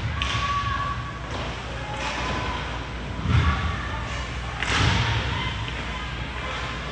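Basketball thudding on a gym floor, with two loud thuds about a second and a half apart in the middle, over background voices echoing in a large hall.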